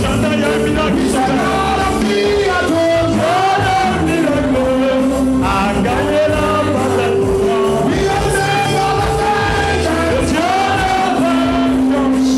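Live gospel worship song: a man sings the lead into a microphone over amplified instrumental backing with sustained low notes.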